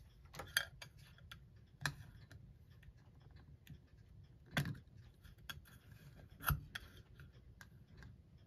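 Faint, irregular clicks and taps of a thin metal tool working at a stuck hour hand on a clock face, with four louder knocks spread through.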